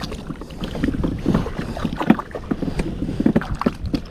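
Fishing kayak on choppy sea: water slapping against the plastic hull in many small, irregular knocks and splashes, over a low rumble of wind on the microphone.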